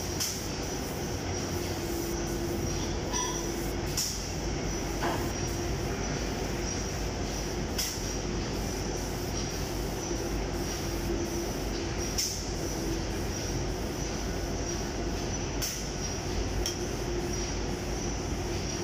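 Steady machinery noise: a low rumble with a hiss over it, a faint whine that comes and goes, and a few sharp clicks scattered through it.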